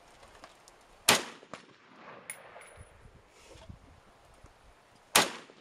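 Two rifle shots from an SKS Type 56 semi-automatic carbine in 7.62×39mm, about four seconds apart, each a sharp crack with a short echoing tail, fired during a test-firing.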